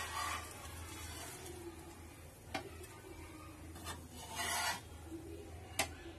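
Metal spatula scraping across a flat tawa pan as it slides under a shallow-fried chicken shami kabab to lift it, with a longer scrape about four seconds in and a couple of sharp clicks of metal on the pan.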